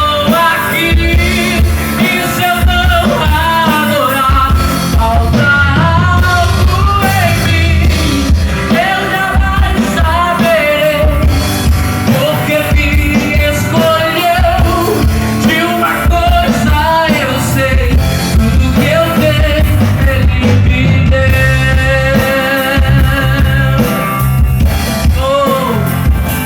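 Live band playing through a PA system, a lead singer over drums, bass and guitar, loud and continuous.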